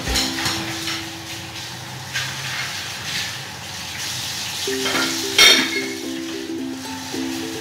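Large pot of water with mutton meatballs at a rolling boil, a steady bubbling hiss. A single sharp knock about five and a half seconds in; soft background music notes come and go.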